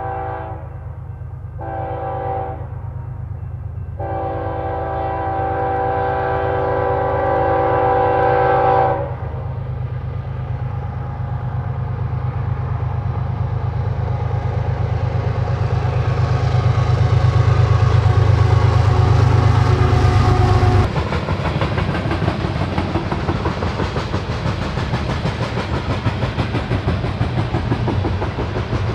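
Air horn of a BNSF ES44AC leading a coal train, sounding a short blast and then a long one that ends about a third of the way through, as at a grade crossing. The diesel locomotives' engines then grow louder as they pass close by. After an abrupt change about two-thirds of the way through, the coal cars' wheels click over the rail joints in a steady rhythm.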